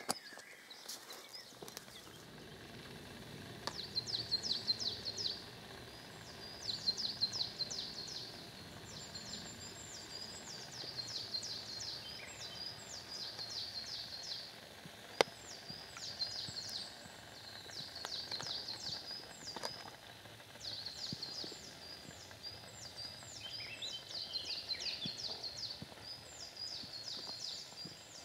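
Songbird singing short phrases of quick, falling high notes, repeated over and over every two seconds or so, with a lower bird call joining briefly about three quarters of the way through. A single sharp click sounds about halfway in.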